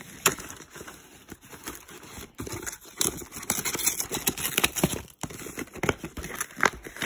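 White cardboard box and paper packaging being torn open and crumpled by hand: a run of irregular rips and crackles, sparse at first and busier from about three seconds in.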